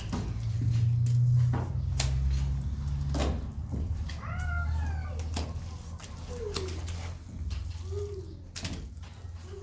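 A cat meowing, with a cluster of cries about four seconds in and two shorter, lower meows later. Sharp taps and scrapes from a hand trowel working plaster on a mud wall, over a steady low hum.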